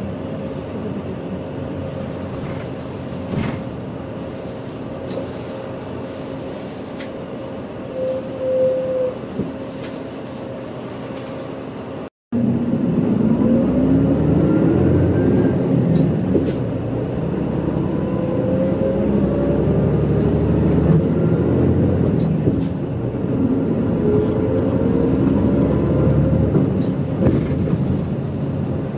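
A mid-size route bus heard from inside the cabin. For the first half its engine drones steadily while cruising. After a brief break it is louder, and the engine pitch rises several times in a row as the bus accelerates through its gears.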